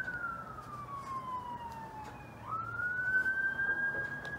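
Emergency vehicle siren in its slow wail: one long tone falling steadily for about two seconds, then sweeping back up and holding high.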